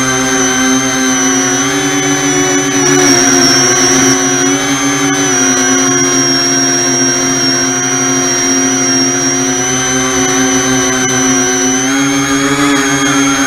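E-flite Convergence VTOL's three brushless electric motors and propellers whining steadily in hover, heard close up on the aircraft's onboard camera; the pitch sags slightly around the middle and rises a little near the end.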